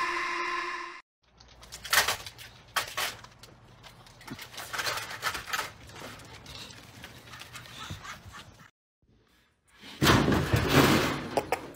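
A carpeted cat tree crashing over with a loud clatter of thuds, about ten seconds in. Before it come a short held tone at the very start, then scattered light clicks and shuffling over a low hum.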